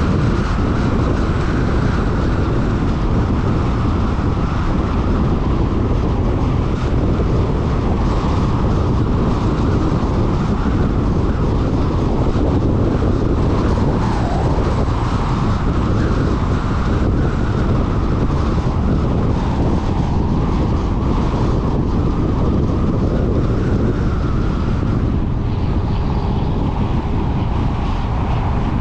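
A car driving at road speed: a steady rush of tyre and wind noise.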